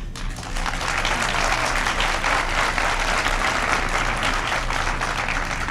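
Audience applauding, a dense steady clapping that builds within the first half-second.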